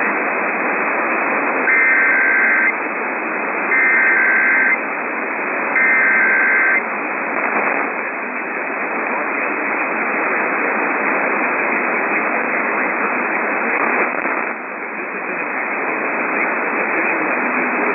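Three Emergency Alert System SAME header bursts, each about a second of buzzing two-tone digital data, spaced about a second apart. They sit over heavy, hissy AM radio static that carries on after them.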